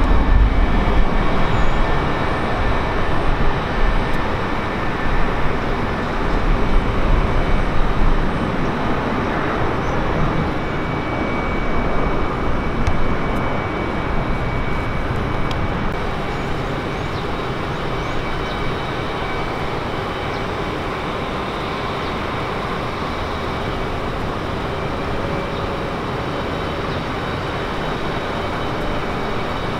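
Jet airliner engine noise: a broad rush with a deep rumble, loudest over the first eight seconds or so, then easing off and holding steady.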